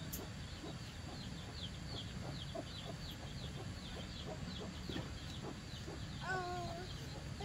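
Chicks peeping: a steady run of short, high, falling chirps, about three a second, with a brief lower call about six seconds in.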